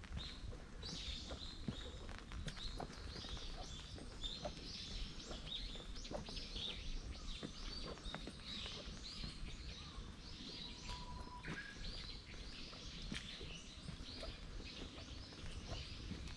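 Small birds chirping and calling again and again in the trees, over the soft footsteps of someone walking along a path.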